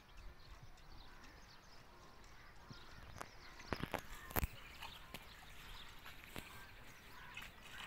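Faint outdoor ambience of camels at a concrete water trough, with a handful of short, sharp clicks and knocks a little past the middle.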